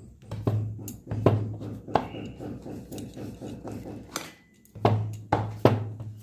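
Steel plate knocking and clattering on the counter as pizza dough is pressed flat on it by hand, about seven sharp knocks in all.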